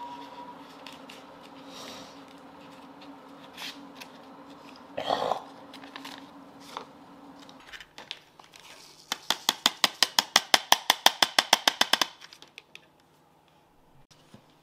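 Hand coffee grinder being emptied into a pour-over dripper: a few scattered knocks, then a fast even clicking, about eight clicks a second for some three seconds, as the grounds are knocked out of the grinder's cup into the paper filter. A low steady hum stops about halfway through.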